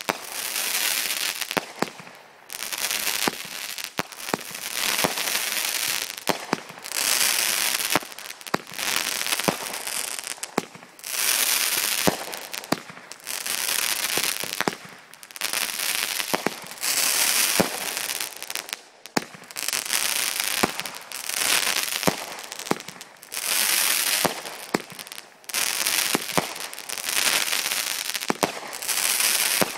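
Fireworks finale with effects firing one after another: a hissing whoosh roughly every second or two as each shot goes up, with many sharp pops and cracks between them.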